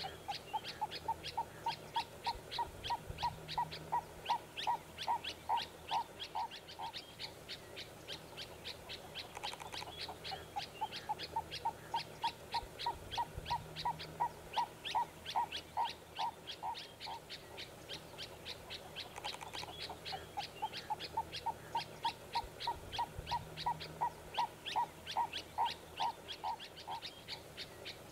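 Birds calling in the bush: a rapid series of evenly spaced notes, about four a second, held for several seconds and repeated about every ten seconds, over quicker, higher chirps.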